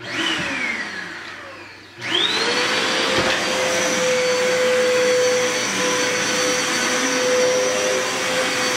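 Vacuum cleaner: a whine falling in pitch over the first two seconds, then at about two seconds the motor is switched on, spins up with a quickly rising whine and runs steadily with a high-pitched whine over a loud rush of air.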